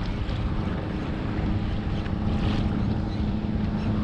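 Wind buffeting the microphone over choppy water, with small waves lapping around the kayak and the steady engine hum of a distant motorboat that grows a little stronger near the end.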